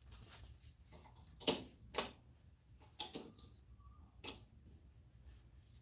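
Handling noise from a paper instruction manual and the chop saw: about five light, sharp clicks and paper crackles, scattered and irregular, over a faint low room hum.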